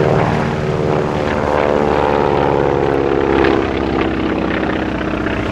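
Boeing P-26 Peashooter's radial engine and propeller droning steadily in a low flypast. The pitch sags slightly in the second half as the plane goes by.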